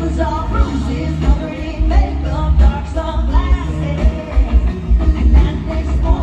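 Live country-rock band playing, with a woman's lead vocal over heavy drums and bass.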